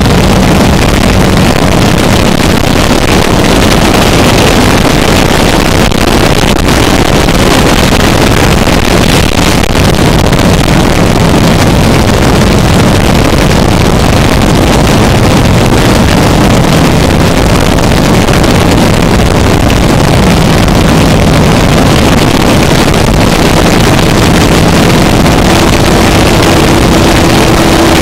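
Harsh noise music: a loud, unbroken wall of distorted noise filling every register, with a low droning hum beneath it. A steady higher tone joins near the end.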